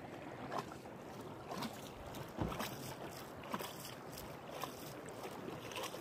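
Canoe being paddled across calm water: short paddle splashes about once a second over soft water lapping and a little wind on the microphone.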